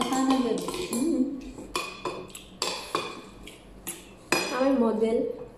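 Spoons and forks clinking and scraping against plates and bowls in a string of sharp clicks, with short bits of voice at the start and again near the end.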